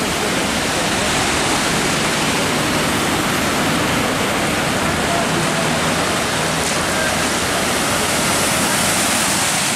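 Steady rushing wash of water as cars drive through a flooded street, their tyres throwing up spray.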